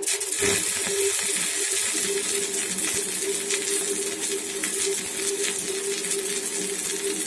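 Stick welding with a small IGBT inverter DC welder and a 3.15 mm electrode: the arc strikes at once and burns steadily with a continuous crackling sizzle. A steady hum sits underneath.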